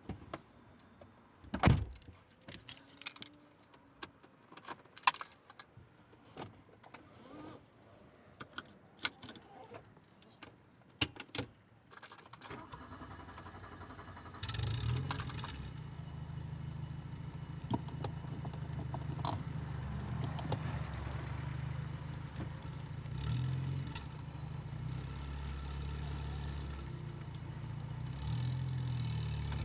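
Clicks, knocks and key jangles inside a 1984 VW Golf Mk2's cabin, then about twelve seconds in its carburetted four-cylinder petrol engine is started and settles into a steady idle.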